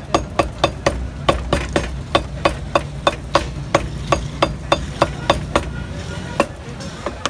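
Meat cleaver chopping mutton, regular strokes about three to four a second, slowing to a couple of single chops near the end.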